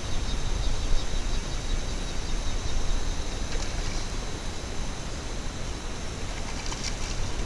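Steady rushing of wind and water around a small boat, with light splashing of a hooked fish thrashing at the surface as it is netted.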